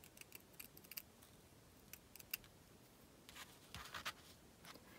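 Faint snips of small scissors cutting a small fabric appliqué piece: a quick run of snips in the first second, a few more around two seconds in, then light clicks and handling near the end.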